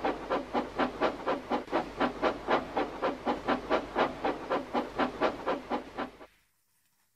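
Steam locomotive chuffing away at a steady beat of about four chuffs a second, fading and then stopping about six seconds in.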